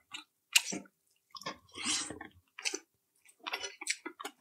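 Close-miked mouth eating chicken sisig: irregular wet chewing smacks and squishes.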